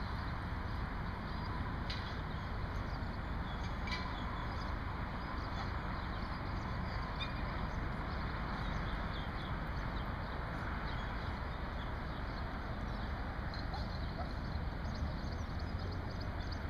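Open-air background noise: a steady rumble and hiss, with scattered faint high chirps.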